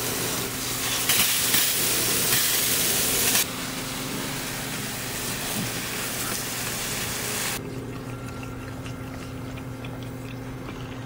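Garden hose spray nozzle hissing as water sprays onto grass and the dog, loudest for the first three seconds or so. About seven and a half seconds in, the spray drops to a much quieter trickle, and a steady low hum carries on underneath.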